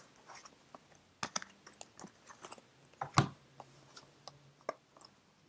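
Tarot cards being handled and drawn from the deck: a scatter of faint light clicks and taps, with a few sharper snaps about a second in and again around three seconds in.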